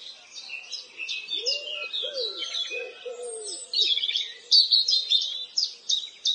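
Several small songbirds chirping and twittering in quick, high notes, joined by a few low coos, like a dove's, between about one and a half and three and a half seconds in.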